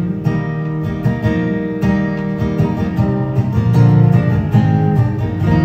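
Acoustic guitar strummed in an instrumental passage with no singing. Near the end a chord is struck and left ringing.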